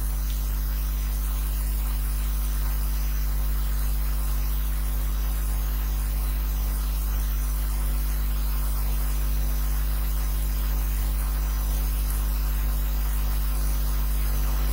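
Steady electrical mains hum with a faint hiss, a constant low drone with evenly spaced overtones that does not change.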